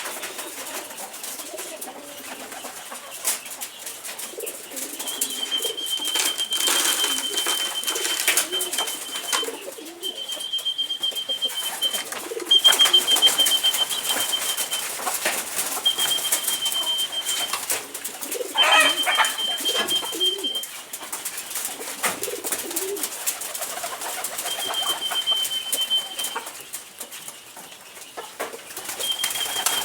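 A flock of poultry around a feeder: low calls and scattered clicks and rustles, with a high steady trill that comes and goes about seven times, a few seconds each.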